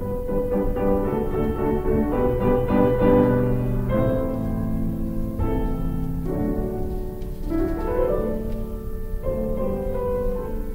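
Instrumental intro music led by piano, sustained chords changing every second or two.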